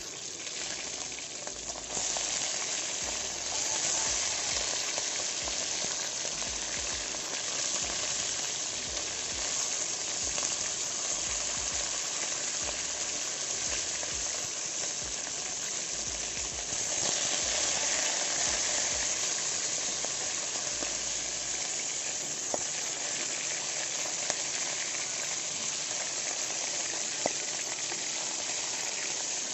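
Fish steaks frying in hot oil in a wide metal wok, a steady sizzle that grows louder about two seconds in and again past the middle. A few light clicks of metal tongs against the pan near the end.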